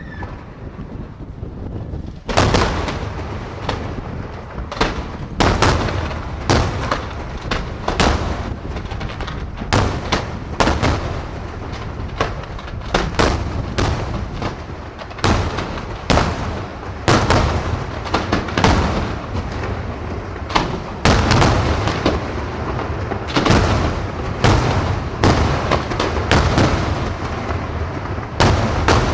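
Fireworks shells bursting in quick succession: sharp loud bangs, often more than one a second, with a low rumble rolling between them. The bursts begin about two seconds in.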